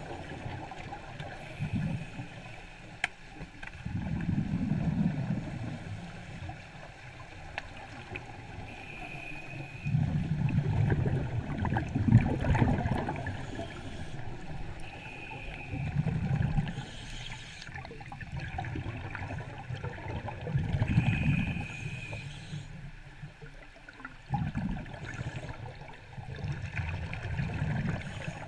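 Underwater gurgling rumble of scuba exhaust bubbles from a diver's regulator, coming in surges every few seconds with each breath out, with a short high tone before some of them.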